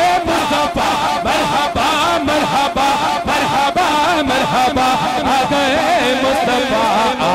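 Naat, an Urdu/Punjabi devotional song in praise of the Prophet, being chanted with a wavering, ornamented melody over a steady beat of about two beats a second.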